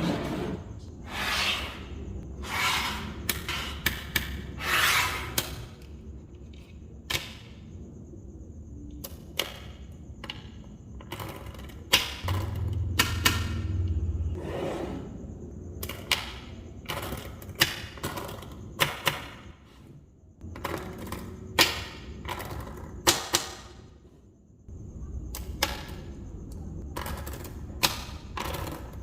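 Small magnetic balls snapping and clicking together by hand, in irregular sharp clicks. A few brief rattling runs suggest balls rolling or sliding against one another.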